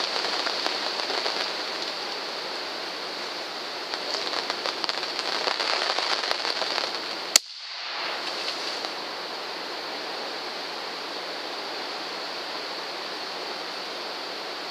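Rain pattering steadily, heavier from about four to seven seconds in, broken by a single sharp gunshot at about seven seconds; the rain carries on more softly after it.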